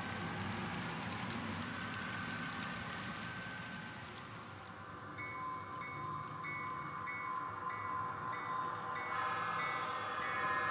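Model railroad grade-crossing bell ringing in a steady repeating pattern, about two strokes a second, starting about five seconds in, just after the rolling noise of HO-scale freight cars. The overall sound grows louder toward the end as a model locomotive approaches the crossing.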